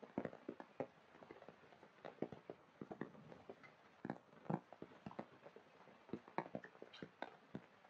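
Rain coming down in large, scattered drops: irregular sharp taps and drips, several a second, over a faint hiss.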